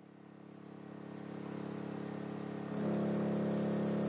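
A 12-inch subwoofer in a sealed box playing a 35 Hz test tone, heard as a steady low buzz that swells gradually and jumps louder about three seconds in. The air pressure drives a second subwoofer acting as a generator, which is powering a small AC synchronous motor that turns.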